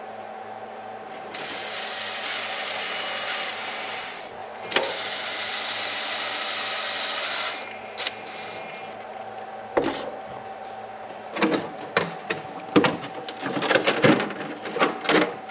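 Hands working on a plastic RC truck body and chassis: a steady hiss for about six seconds, then a run of sharp plastic clicks and knocks, coming faster near the end.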